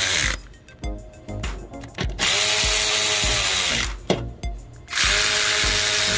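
Cordless electric ratchet driving water-pump bolts in three runs of about two seconds each. The motor's whine drops in pitch at the end of each run as the bolt snugs down. Scattered clicks and knocks come between the runs.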